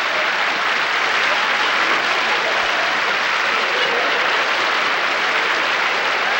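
Large audience applauding steadily, a dense even clatter of many hands.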